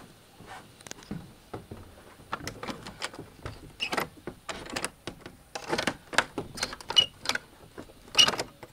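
Brass lever door handle and latch worked by hand: a run of clicks and rattles, with a few short metallic clinks.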